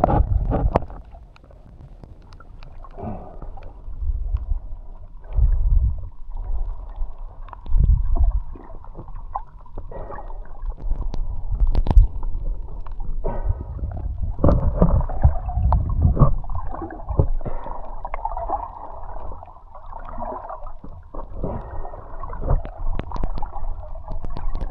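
Muffled water noise picked up underwater: a shifting low rumble and swishing of moving water, with scattered small clicks and knocks.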